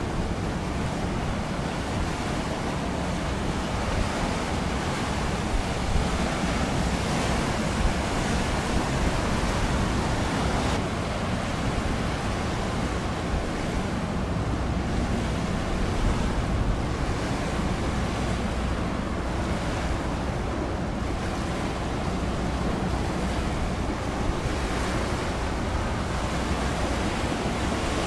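Steady wind and the wash of choppy sea water, with wind rumbling on the microphone.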